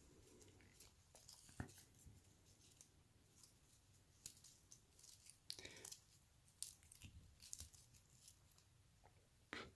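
Faint, dry rustling and crackling of thin fibrous strands being handled and pulled apart between the fingers, with scattered small ticks and a few slightly louder rustles about halfway and near the end.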